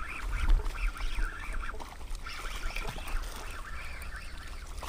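A group of birds calling over and over in short, wavering, duck-like calls that overlap one another, over a low rumble.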